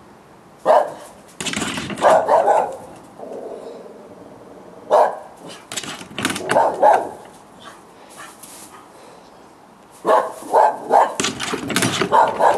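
Several dogs barking in bouts of sharp barks with pauses between: a cluster in the first seconds, another around five to seven seconds in, and a rapid run of barks from about ten seconds in.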